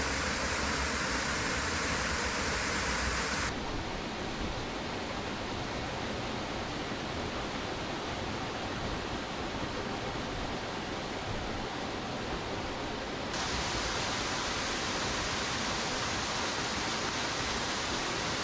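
Waterfall: a steady rush of falling water. A few seconds in it turns duller and a little quieter, and it brightens again about three quarters of the way through.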